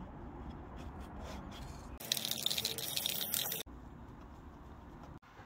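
A spray hissing for about a second and a half near the middle, starting and stopping abruptly, between stretches of low steady background noise.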